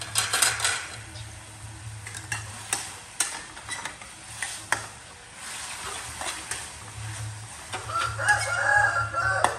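A metal ladle and spatula scraping and clinking against a steel wok as meat is stir-fried, with a light sizzle underneath. A rooster crows near the end.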